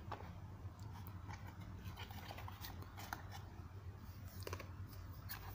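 Scattered light clicks and taps of a hard plastic fishing-tackle box and its parts being handled.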